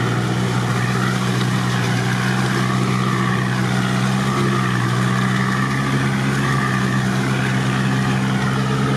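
Off-road 4x4's engine running steadily at low revs while the vehicle wades slowly through a flooded, muddy forest track, heard from inside the cab.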